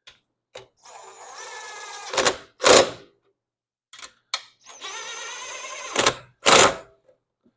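Socket ratchet turning in two runs of rapid, even clicking, each ending in two sharp loud clicks. These are the ignition armature's two mounting bolts being tightened after the air gap is set.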